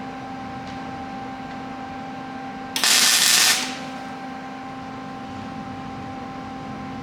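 A welder lays a short tack weld: a loud, harsh crackle just under a second long, about three seconds in. A steady hum with a few fixed tones runs underneath throughout.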